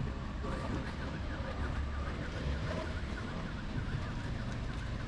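An electronic siren warbling fast, rising and falling about five times a second. It starts about half a second in and stops near the end, over a steady low rumble of street noise and wind on the microphone.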